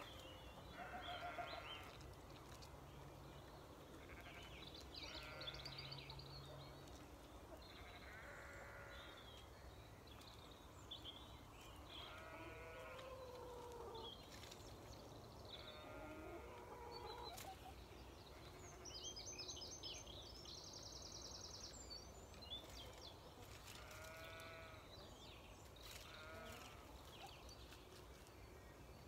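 Faint, drawn-out farm-animal calls repeating every couple of seconds, with a small bird's brief high twittering song about two-thirds of the way through.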